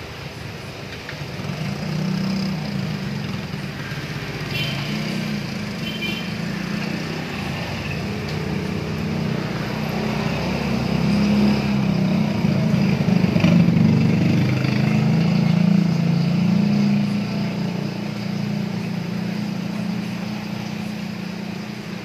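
A motor engine running steadily, a low drone that grows louder around the middle and eases off again.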